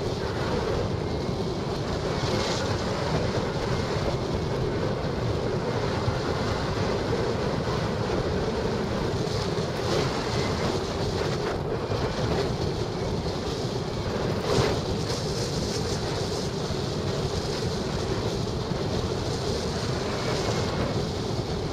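Steady rush of wind over the microphone of a camera mounted on a hang glider in flight, with a brief louder gust about two-thirds of the way in.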